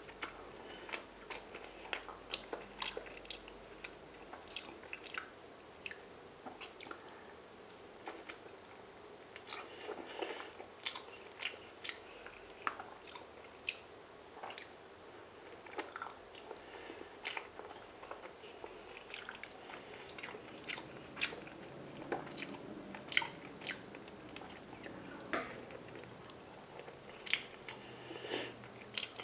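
Close-miked chewing of raw salmon slices dipped in a grainy chili seafood sauce: wet mouth sounds with many sharp, irregular smacks and clicks.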